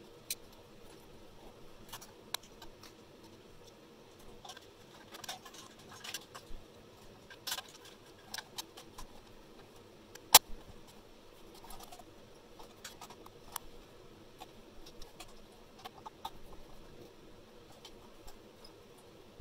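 Scattered light clicks and taps of wire and small metal parts being handled inside a steel chassis during rewiring, with one sharp click about ten seconds in.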